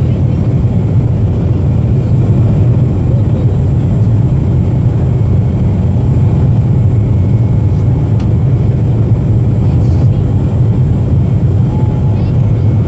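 Boeing 737-400 in flight, heard from inside the passenger cabin: a loud, steady low rumble of engine and airflow noise with no thumps or changes.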